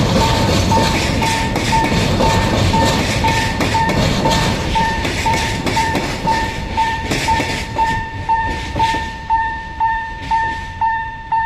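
Level crossing's electronic warning chime ringing steadily at about two dings a second, while a train of a DD401 diesel locomotive and flat wagons rolls past with wheels clattering over the rails. The train noise fades about eight seconds in, leaving the chime alone.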